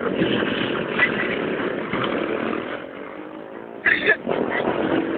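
A vehicle engine running close by amid steady street traffic noise, with a short loud sound about four seconds in.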